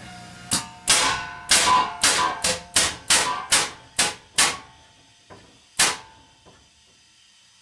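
Homemade air cannon built on a portable air tank firing a rapid string of short, sharp air blasts as the trigger wires are tapped together, about a dozen in four seconds. One more strong blast comes near six seconds, followed by a couple of faint pops.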